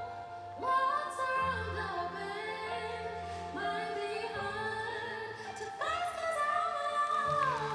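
Skating program music: a woman singing long held notes with vibrato over low, sustained accompaniment, the last note sliding down near the end.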